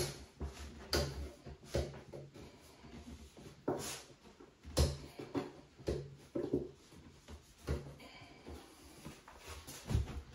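Irregular knocks, taps and clicks of a white vanity cabinet door and cabinet box being handled and worked on by hand, with a few dull low thuds among them.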